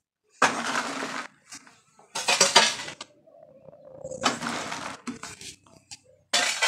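Metal shovel blade scraping across a ceramic-tiled floor as it scoops up loose potting soil, four scrapes about two seconds apart.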